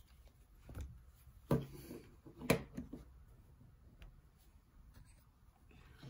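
Handling noises on a desk: a few soft knocks and rubs, the two sharpest about a second and a half and two and a half seconds in.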